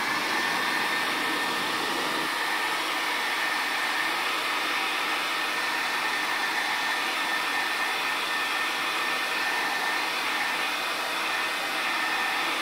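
Hair dryer switched on and running steadily: an even rush of air with a faint, steady whine in it, blowing on freshly brushed acrylic paint to dry it.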